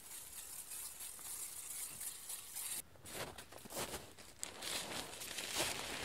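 Aerosol can of silicone water-repellent spray hissing in a steady stream onto a tent's nylon fly sheet, stopping about three seconds in. Then more hissing of spray mixed with the crinkle of the tent's fabric skirt being handled.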